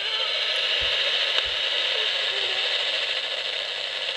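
Shortwave radio static from a homemade slug-tuned receiver's loudspeaker, a steady hiss in which a weak distant station's signal is drowning in the noise as it fades. Two soft low thumps about a second in.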